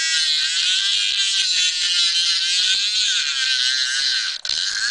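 Rodin-coil DC pulse motor spinning a half-inch neodymium magnet ball at high speed in an oiled plastic cup: a loud, high, wavering whine with a rattling buzz. It cuts out for an instant near the end, then picks straight up again.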